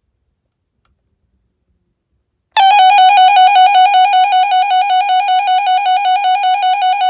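Radio Shack 12-247 weather radio sounding its alert siren: a loud, fast-warbling electronic tone that starts suddenly about two and a half seconds in.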